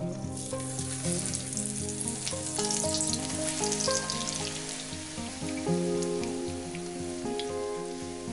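An egg omelette frying in hot oil in a pan, sizzling with dense crackle that is strongest in the first half and thins out later. Background music plays under it.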